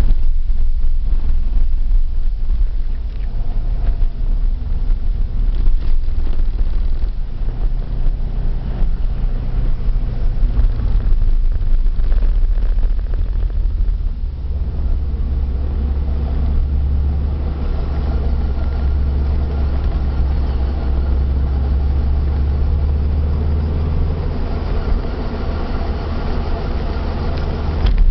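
Subaru Impreza GC8 on the move: steady road and drivetrain rumble with a faint drone from a worn wheel hub bearing. The low drone grows stronger about halfway through.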